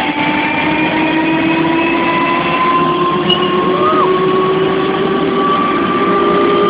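Helicopter turbine engine spooling up during start, a whine slowly rising in pitch over a steady rumble.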